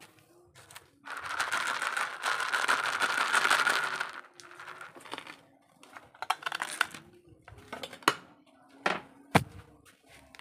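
A loud crinkling rustle lasting about three seconds, followed by scattered light taps and a few sharp clicks.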